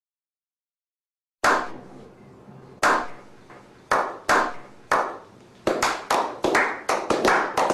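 Slow clap sound effect: hand claps, first a few seconds apart, then speeding up into quick clapping, each clap with a short echoing tail.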